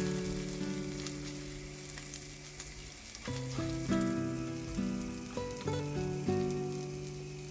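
Butter sizzling and crackling in a hot frying pan, under soft background music with plucked, guitar-like notes.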